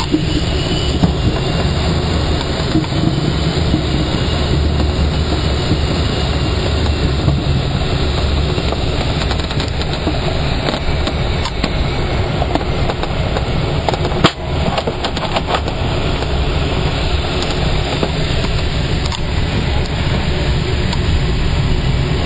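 Steady, loud rush and rumble of an ASK21 glider in motion, with one sharp knock about fourteen seconds in.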